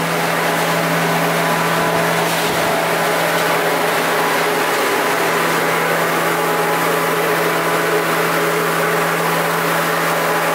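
Steady mechanical drone of body-shop machinery running, a constant low hum with a broad hiss over it.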